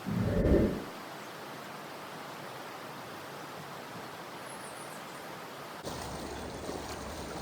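Steady rushing of river water over a shoal. A short, loud, low thump comes right at the start, and near the end the rushing suddenly becomes louder and deeper.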